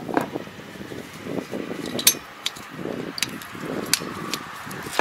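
Scattered metallic clicks and clinks from hands and tools on a Kobashi rotary tiller's gearbox, a handful of sharp taps over rough handling noise.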